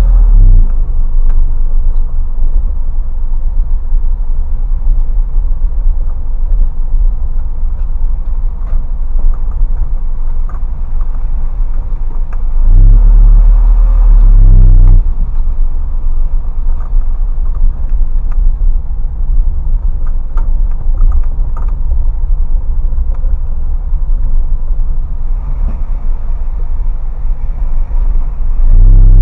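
Isuzu box truck driving: engine and road rumble heard from inside the cab, steady and low, with a louder stretch of about two seconds about halfway through where the engine note rises and falls.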